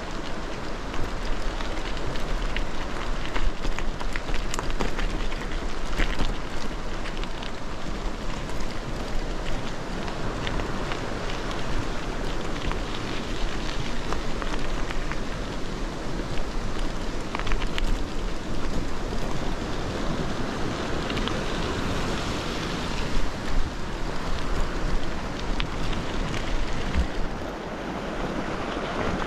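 Bicycle tyres rolling and crunching over a loose gravel road on a descent, with wind rushing over the microphone and frequent sharp clicks of stones and the bike rattling. The noise drops a little about two seconds before the end.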